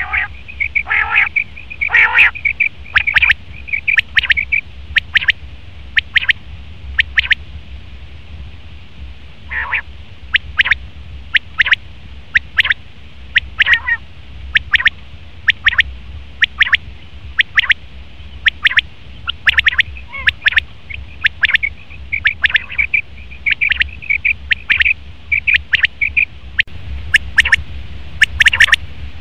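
Male common quail calling: short, sharp, high notes repeated in quick groups over and over, over a steady low hum.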